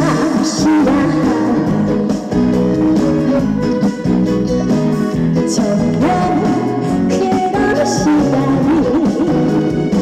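A Korean trot song playing loudly over a PA: an instrumental backing track, with a woman's singing voice coming in.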